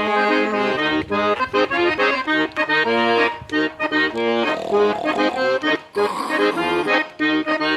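Accordion (gaita) playing an instrumental passage of a bugio, the gaúcho dance rhythm, in short rhythmic chords.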